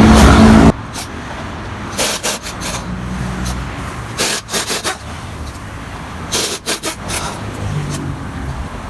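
Loud car road noise cuts off abruptly less than a second in. Then come scattered sharp knocks and clanks of tools working on a car wheel during a tyre change, some in quick bunches, over a faint low hum.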